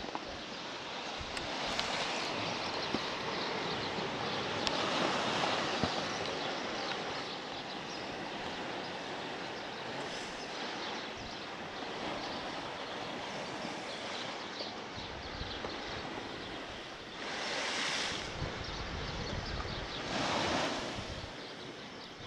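Black Sea surf breaking and washing up the beach, with wind on the microphone. The wash swells and ebbs, with two louder surges near the end.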